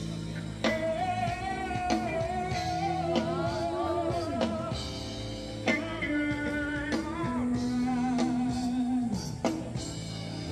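Music from a band: a singer holding long, wavering notes over drums.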